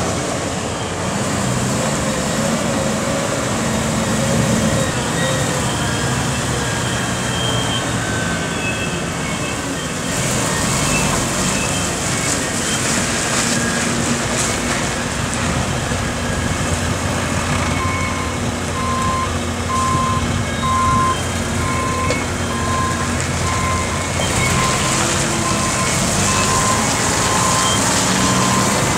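2003 Mack CV713 Granite concrete mixer truck's diesel engine running as the truck drives about. From a little past halfway a backup alarm beeps steadily, about once a second.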